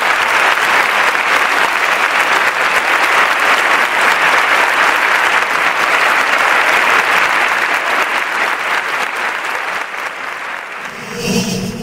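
A crowd clapping and applauding steadily, easing off toward the end.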